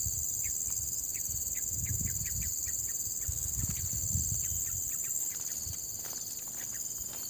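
Steady high-pitched insect drone with a run of short, quick bird chirps over it, and low uneven thuds of footsteps through the undergrowth.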